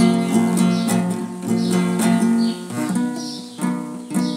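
Acoustic guitar strummed in a steady rhythm, ending on a last chord near the end that rings on and fades away.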